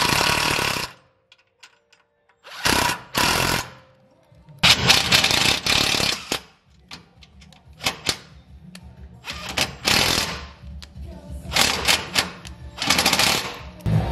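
Cordless impact driver with a socket running in several short bursts, its hammer mechanism rattling as it drives bolts into the Jeep's frame.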